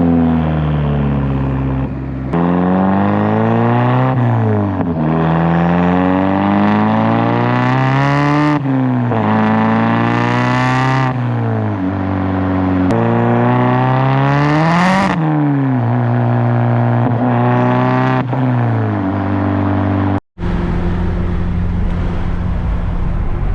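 Mazdaspeed3's turbocharged 2.3 L four-cylinder running through a full CPE exhaust with a catless downpipe and a hood-exit external wastegate, revving so its pitch climbs and falls several times, with sharp drops between climbs and a hiss at the tops. Near the end a sudden cut gives way to a steadier, lower drone.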